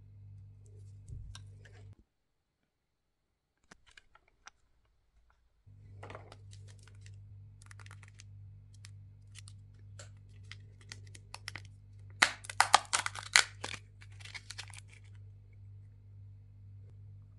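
Plastic surprise-egg capsule handled, unwrapped and opened: scattered clicks and crinkles that thicken into a dense, loud burst of clicking about twelve to fourteen seconds in, then stop. Before that there is a few seconds' gap of near silence.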